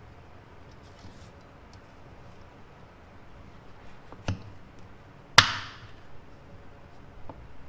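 Large kitchen knife chopping peeled sweet potato on a wooden cutting board: a few light taps, a knock about four seconds in, then a single loud, sharp chop a second later.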